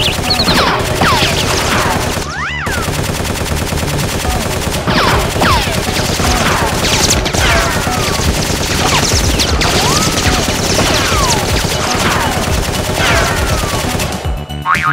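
Sound-effect automatic gunfire, continuous and loud, with repeated falling whistles like bullets whizzing past, breaking off near the end.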